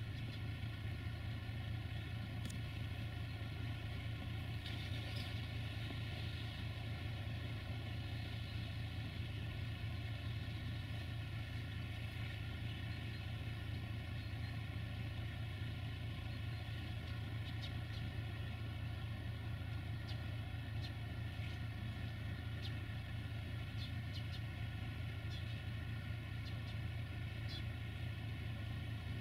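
Steady low drone of an LDE2100 (CFR class 60) diesel-electric locomotive's engine working in the distance as it approaches with a freight train, with a few faint ticks scattered through it.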